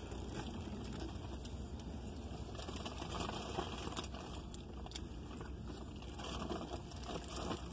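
A car's cabin while the car creeps forward: a steady low engine and road rumble, with scattered light crackles and rustles.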